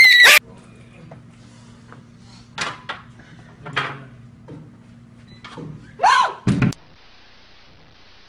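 A high-pitched scream cuts off in the first half second. Then there is a quiet hum with a few faint knocks, until a short cry falling in pitch and two heavy thuds in quick succession about six and a half seconds in.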